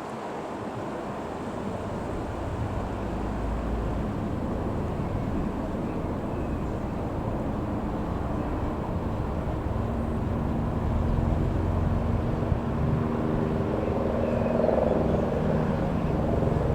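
Eurocopter AS.355-F2 Ecureuil 2 twin-engine helicopter approaching overhead, a low rumble growing steadily louder, with a humming tone coming in about ten seconds in.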